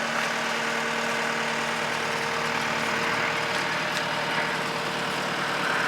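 Engine of the loader machine lifting the truck bed, running steadily at low revs with a constant hum while the operator tilts the forks.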